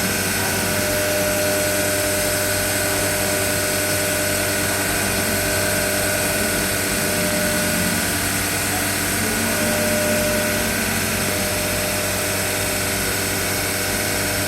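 Omnitech CNC machine on a ghost run, moving through its program without cutting: a steady machine hum, with a lower motor tone that comes and goes every few seconds as the axes move.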